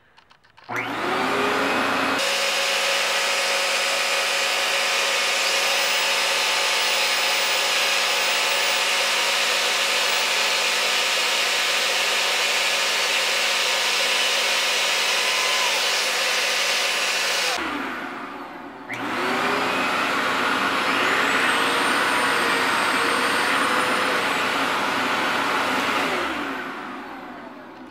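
Dremel rotary tool with a sanding drum running at high speed, sanding down small tabs on a headlight reflector's H1 bulb holder. It runs steadily with a high whine, stops briefly after about 17 seconds, starts again, and winds down near the end.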